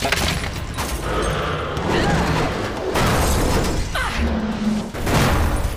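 Animated fight-scene sound effects over background music: a run of hits and crashes, with short vocal effort sounds between them.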